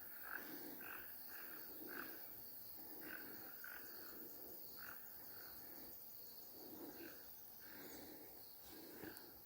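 Faint chorus of frogs and insects: short calls repeat every half second to a second over a steady high-pitched insect trill.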